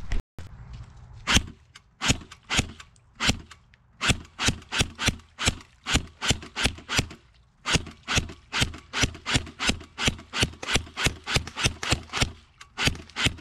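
Footsteps on a muddy trail, a quick, even rhythm of about three steps a second.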